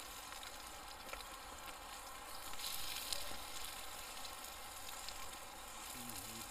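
Steak burgers sizzling in a small frying pan over a wood campfire: a steady frying hiss that swells a little about two and a half seconds in, with a few faint clicks.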